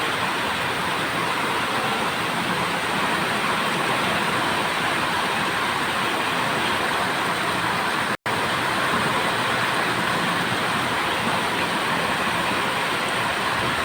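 Steady rainfall, an even hiss of falling rain, broken by a split-second dropout about eight seconds in.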